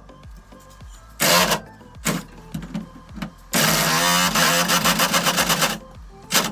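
Power impact wrench working on rusty body-to-chassis bolts, run in short bursts and then one longer burst of about two seconds that breaks into rapid hammering.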